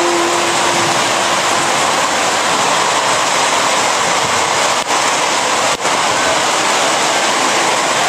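Heavy rain falling in a downpour: a loud, steady rush of rain noise, briefly cut out twice about five and six seconds in.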